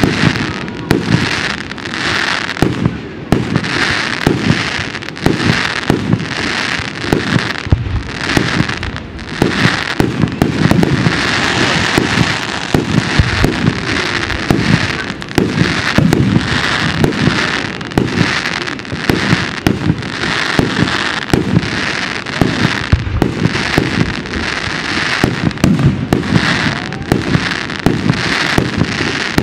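Aerial fireworks display: shells bursting in rapid, near-continuous succession, with crackling and sputtering between the bangs.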